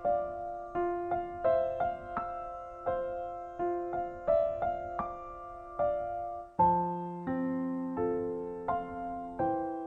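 Calm background piano music: a slow melody of single struck notes over held chords, with a lower bass note entering about two-thirds of the way through.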